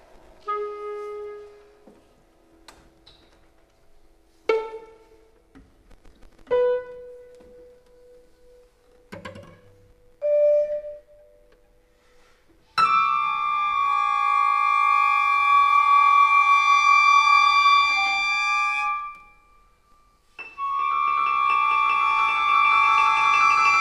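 Contemporary chamber-ensemble music: sparse, isolated notes and short attacks that ring briefly, then a loud sustained chord that enters about halfway through, holds for several seconds, breaks off and comes back near the end.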